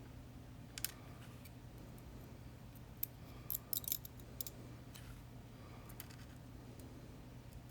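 Small metallic clicks and taps of tiny lock pins, springs and parts being handled and fitted during reassembly, with a quick cluster of clicks a little past three seconds in, over a faint steady hum.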